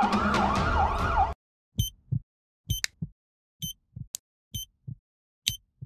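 An emergency-vehicle siren rising and falling quickly, cut off abruptly a little over a second in. Then a heart-monitor beep and a double-thump heartbeat repeat about once a second.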